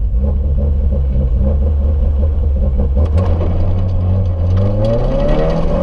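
Rally car engine heard from inside the cabin, held at steady revs at the stage start. About four and a half seconds in, the revs begin to climb as the car pulls away onto gravel.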